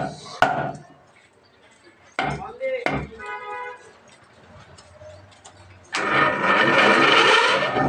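A sharp knock, a few scattered knocks and workshop sounds, then about six seconds in an electric power tool starts and spins up with a rising whine, running loud to the end.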